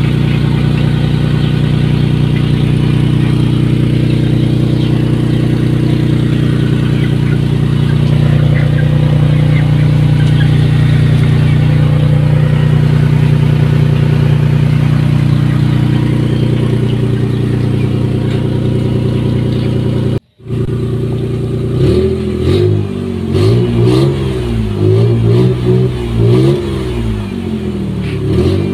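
An engine sound runs steadily, cuts out briefly about twenty seconds in, then comes back rising and falling in quick pulses.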